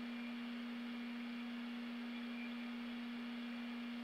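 A steady low hum: one unchanging tone with faint hiss beneath it.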